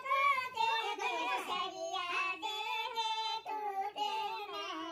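High-pitched voices singing, with several voices overlapping and held, bending notes.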